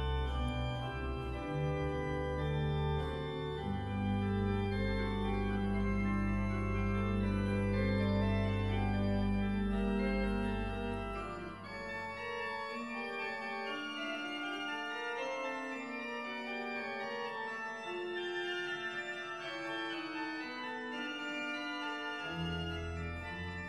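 Organ music: slow, sustained chords. Deep bass notes sound under them for about the first half, drop out around halfway, and return near the end.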